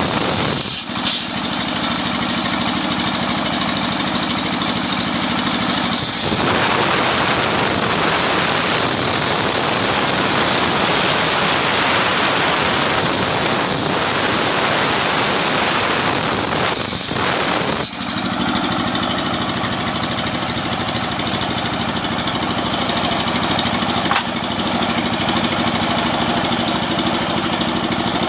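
Homemade sawmill's engine running steadily. For about twelve seconds in the middle its even note is buried under a dense, harsher noise, then it returns to the plain running sound.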